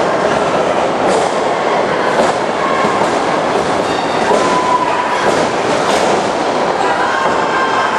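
Steady, echoing din of a crowd yelling in a large gym, with single shouts held on one pitch and a few faint thuds from wrestlers hitting the ring mat.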